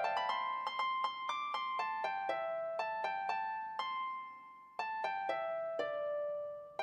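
Music: a solo plucked or struck string instrument playing a melody of quick, ringing single notes. The notes come in phrases, each dying away before the next one starts.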